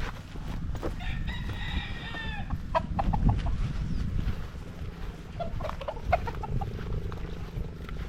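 A rooster crowing once, one call of about a second and a half, followed by a few short chicken calls.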